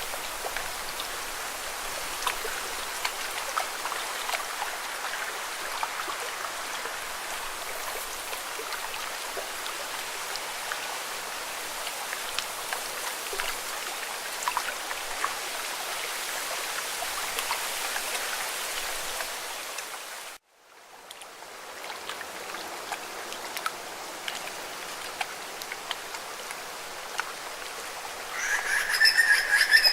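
Rain falling, a steady hiss peppered with small drop ticks. About twenty seconds in it cuts off abruptly and a quieter, similar steady rush fades in, and near the end high, repeated chirping calls start.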